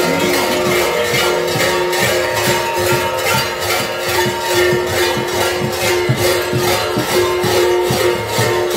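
Large kukeri bells (hlopki) clanging together in a steady rhythm, a dense metallic jangle of many ringing tones, as bell-laden kukeri dancers sway and jump.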